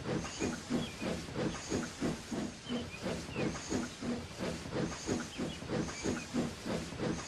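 Steam locomotive running along, its exhaust chuffing evenly at about four beats a second with steam hissing.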